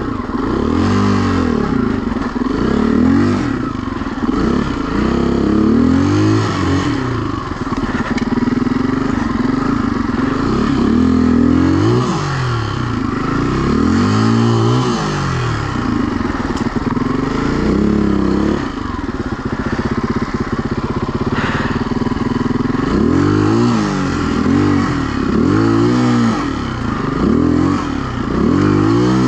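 Enduro dirt bike engine revving up and falling back again and again, with a rise and drop in pitch every one to two seconds as the throttle is opened and shut in short bursts.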